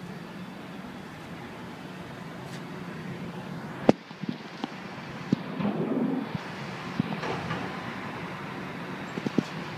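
City street sound with a steady traffic hum. A single sharp knock about four seconds in, followed by a few fainter clicks and a brief swell of noise around the middle.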